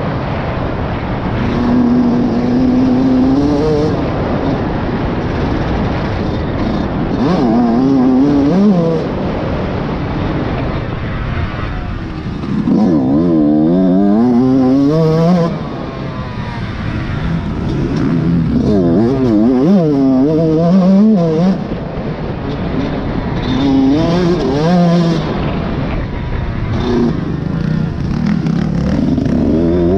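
Dirt bike engine revving hard and easing off over and over, its pitch climbing and dropping as the rider accelerates and backs off around a motocross track, heard from a helmet-mounted camera.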